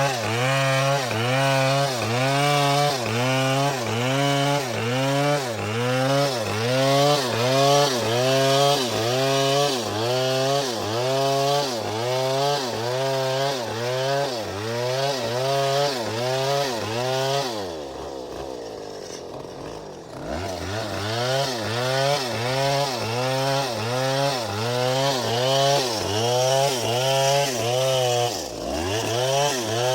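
Chainsaw running under load, cutting through palm trunk, its engine pitch rising and falling about once a second. About 18 seconds in it slows and quietens for roughly two seconds, then revs back up, with another brief dip near the end.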